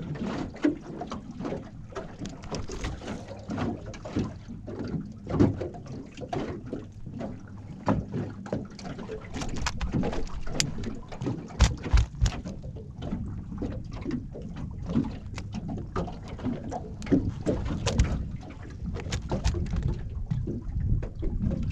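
Irregular knocks, taps and rattles from handling fishing gear and a just-landed bream in a small boat, over a low steady background.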